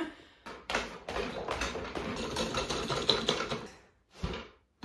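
Rapid clicking and clattering as an office chair's metal star base and fittings are handled, lasting about three seconds, then a single dull knock near the end.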